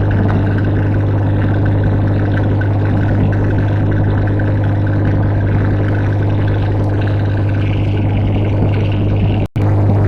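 Tugboat engine running with a steady low drone and a noisy wash above it. It cuts out for a split second just before the end.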